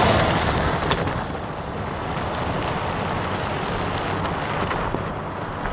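Jeep Gladiator Rubicon pickup with its 3.0-litre turbodiesel V6 passing close on a gravel road, engine and tyres on gravel loudest at the start, then falling to a steady lower level as it drives away.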